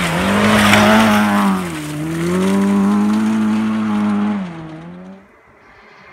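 Rally car engine at high revs as the car passes along a gravel stage, with a hiss of tyres and thrown gravel that is loudest about a second in. The engine note dips briefly twice, then fades away about five seconds in.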